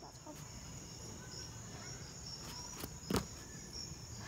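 Insects chirring steadily at a high pitch, with a single sharp thump about three seconds in.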